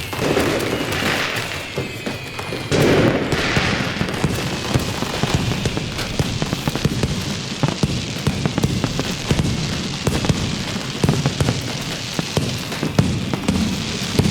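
Fireworks going off: two heavy bursts about one and three seconds in, then a dense run of crackling firecracker pops, with faint whistling in the first few seconds.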